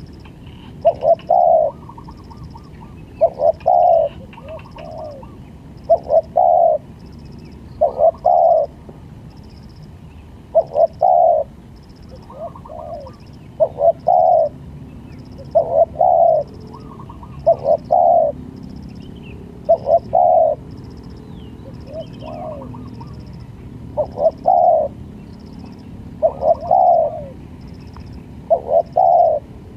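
Spotted dove cooing: short phrases of two or three low, rolling coos, repeated about every two seconds. A faint, even high ticking runs under it, about two a second.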